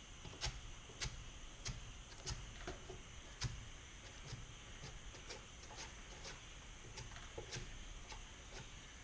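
Faint, irregular light clicks and taps, about one or two a second, from a filler spreader working freshly mixed body filler onto a van's metal roof.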